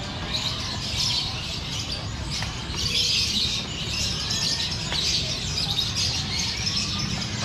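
Many caged songbirds chirping and twittering together in a dense, continuous chorus, over a low background rumble.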